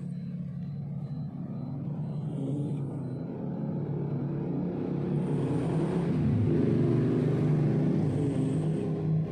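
A sleeping cat snoring through its open mouth: a rough, rattling low rumble that grows louder, with faint breaths about every three seconds.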